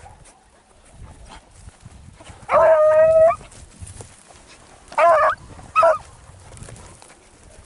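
Beagle baying on a rabbit trail: one long drawn-out bay about two and a half seconds in, then two short barks about five and six seconds in.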